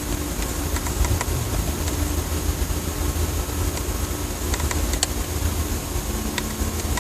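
Steady low rumble like a distant engine droning in the sky, with a few faint clicks. The source is unidentified: no train is nearby.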